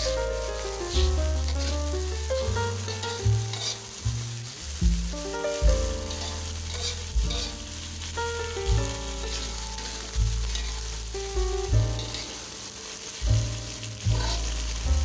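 Vegetables sizzling in a wok while a spatula stirs and scrapes them, a little water just added. Background music with a steady stepping bass line plays throughout.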